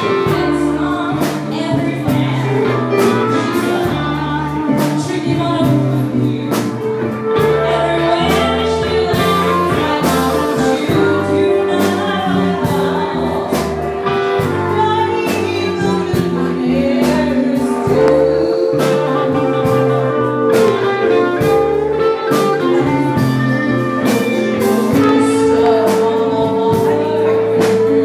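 Live blues band with a woman singing over electric guitar and keyboard, with a steady beat and long held notes.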